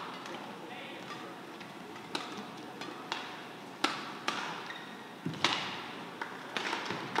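A badminton rally: a string of sharp racket strikes on the shuttlecock, roughly one a second, over the hum of an indoor hall.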